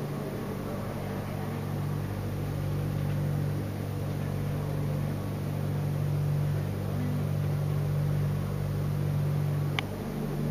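A steady low mechanical hum with a constant pitch, and a single sharp click near the end.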